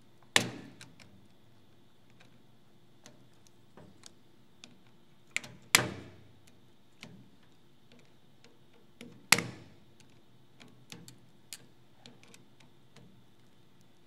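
Small pliers clicking against the metal parts of an IBM Selectric III typewriter's carriage mechanism while working at a nut. Three sharp metallic clicks, just after the start, about six seconds in and about nine seconds in, with lighter ticks between them.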